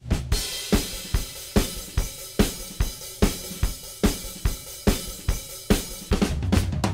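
Intro music: a drum-kit beat of kick drum, snare and cymbals with regular hits, joined near the end by a steady bass line.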